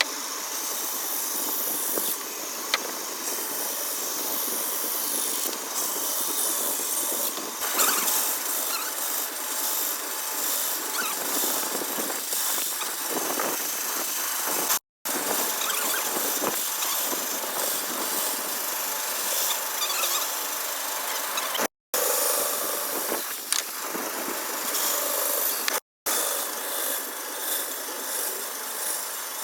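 Woodworking machine running and cutting wood: a steady, noisy grinding with short squeals, cut off abruptly for a split second three times.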